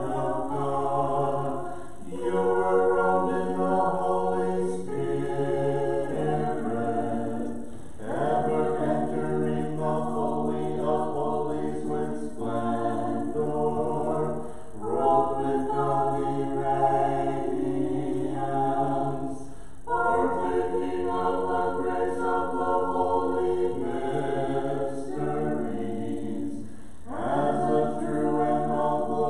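Church choir singing Orthodox Vespers chant a cappella, several voices in harmony over a held low part, in phrases of a few seconds broken by short breaths.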